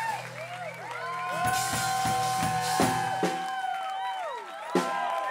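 Live folk-rock band playing: acoustic guitars, banjo and mandolin with drum hits under long held notes that bend away at their ends.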